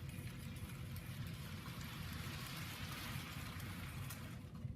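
Model railway locomotive running on the track: its small electric motor and gearing make a steady hiss over a low hum, which stops shortly before the end as the loco comes to a halt.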